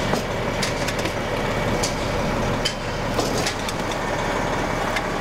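Fire engine's engine idling steadily, with a few light clicks scattered through it.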